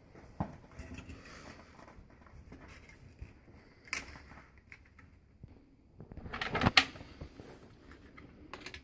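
Handling noise from fitting the sump pump and its pipework: a few scattered light knocks, then a short burst of clattering and scraping about two-thirds of the way through, the loudest part.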